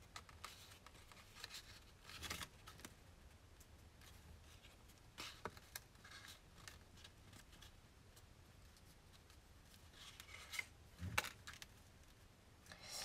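Faint rustling and scraping of black cardstock sheets being slid and pressed flat on a cutting mat, with a few scattered soft taps, the sharpest about eleven seconds in.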